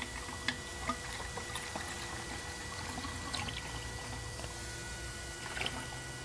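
Inverter coolant being poured into the Toyota Prius inverter coolant reservoir: a steady trickle of liquid with a few small clicks. Under it runs the steady hum of the electric inverter coolant pump.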